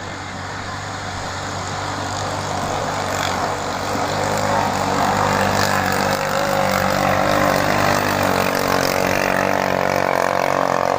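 Ketinting longtail race boats with small Chinese-made engines running at full throttle, the engine noise growing steadily louder over the first several seconds, then holding.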